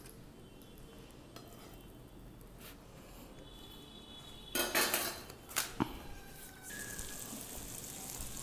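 Metal pans being handled on a gas stove: a clatter of knocks about halfway through, then two more sharp knocks. After that a faint steady sizzle of the egg batter cooking in butter in a non-stick pan.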